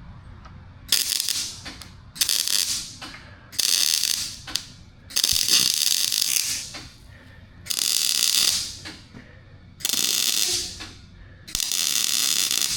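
Arc welding on a galvanized steel exhaust pipe: seven short bursts of crackling weld, each about a second long, with short pauses between them.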